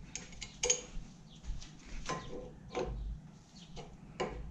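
Light metal clinks and scrapes as a wheel hub is worked onto the end of a go-kart's rear axle: a handful of separate clinks, some ringing briefly.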